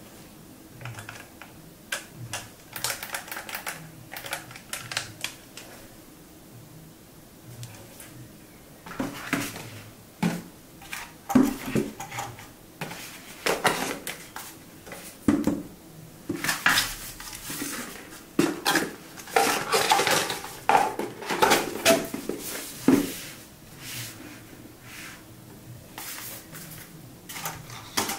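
Unboxing handling sounds: clicks and taps of hard plastic parts being picked up and set down, and spells of rustling as paper wrapping is pulled out of a cardboard box, busiest in the middle.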